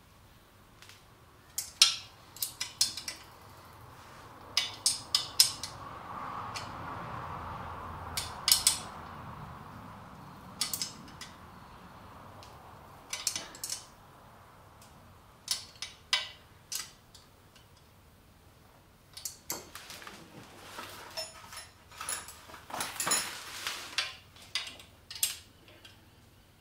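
Metal hand tools clicking and clinking on the exhaust header nuts of a Honda CBR250R MC19 as they are tightened, in irregular clusters of sharp clicks.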